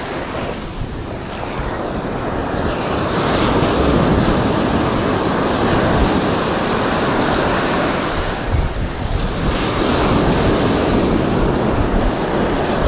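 Sea surf breaking and washing up over the sand, with wind buffeting the microphone. The wash swells and eases, surging about four seconds in and again near the end.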